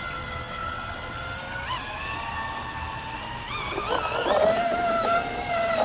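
Scratch-built RC model pontoon boat's motor whining steadily, its pitch rising and falling with the throttle. About four seconds in it becomes louder and closer, with water rushing past the hull.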